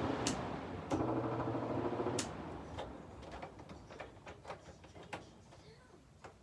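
Haier 5,200 BTU window air conditioner running with a steady hum, then a click about two seconds in and the sound dies away, leaving a few scattered small clicks and knocks. The running noise is the one the owner puts down to the fan motor or the fan blade.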